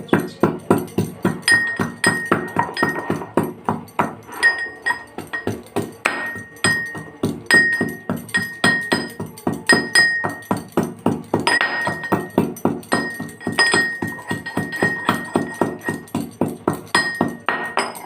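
Background music: a fast, even percussive beat with short, repeated high bell-like pings over it, cutting off suddenly at the end.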